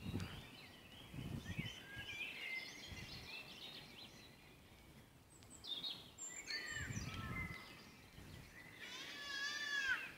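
Several small songbirds singing and calling, with short chirps and whistles throughout and a quick run of repeated notes near the end. A low rumble comes about a second in and again about seven seconds in.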